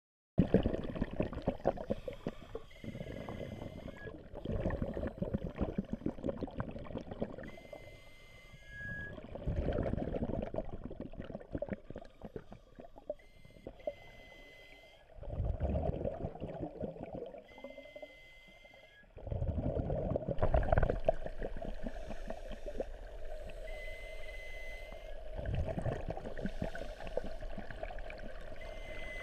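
Scuba exhalation bubbles gurgling in bursts every few seconds, heard underwater through a GoPro's waterproof housing, with a brief high squeak recurring between breaths.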